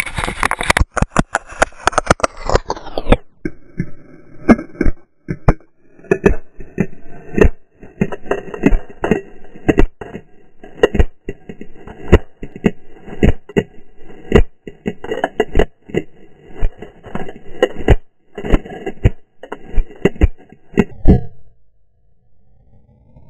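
GoPro camera hung from a running corgi's collar, knocking and rattling with each stride, in slowed-down audio. The sound glides down in pitch about three seconds in, then runs as dull, irregular knocks and thuds. It falls quiet near the end and starts gliding back up in pitch just before the end.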